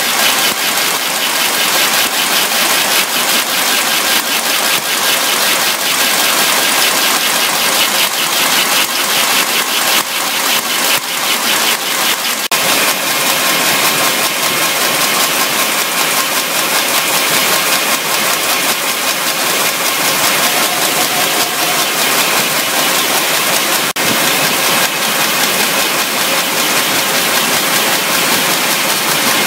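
Can body welding machine on a three-piece can production line running: a loud, steady machine clatter with dense, rapid ticking.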